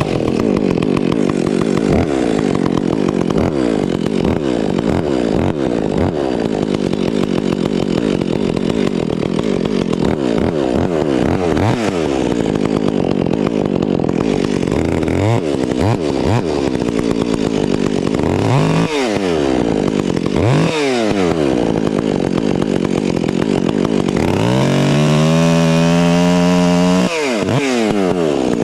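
Two-stroke chainsaw revved up and down over and over, its pitch rising and falling with each blip of the throttle, then held at high revs for a few seconds near the end.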